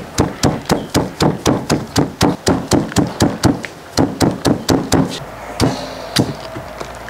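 A knife chopping tender jackfruit into small bits, quick even chops at about three a second that thin out to a couple of scattered strokes after about five seconds.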